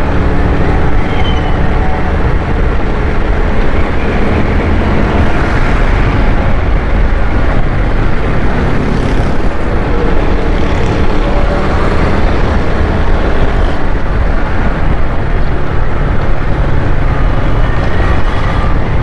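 Steady, loud wind rush and engine noise from a moving motorcycle, with road traffic around it.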